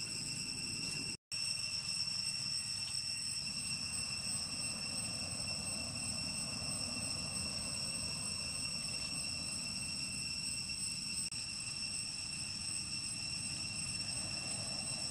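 Steady outdoor ambience: a continuous high insect drone over a low, even rumble, cutting out for an instant about a second in.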